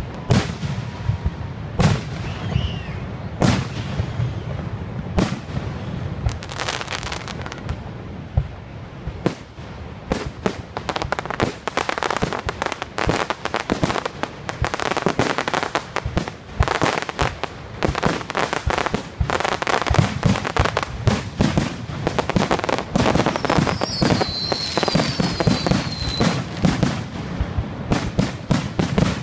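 Aerial fireworks shells bursting in a string of bangs, which grows into a dense, rapid barrage from about ten seconds in. Near the end a high, falling whistle sounds for about two seconds over the bangs.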